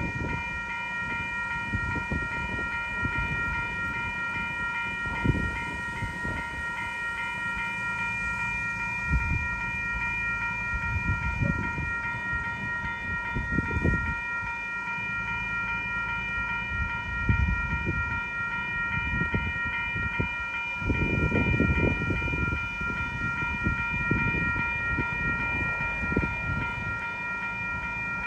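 Level-crossing warning bell ringing rapidly and steadily as the crossing gates come down, with gusts of wind rumbling on the microphone.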